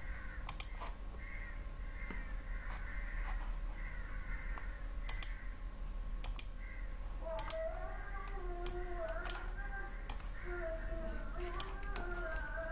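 Scattered sharp computer mouse clicks, about ten spread over the stretch. A faint wavering pitched sound runs in the background from a little past halfway.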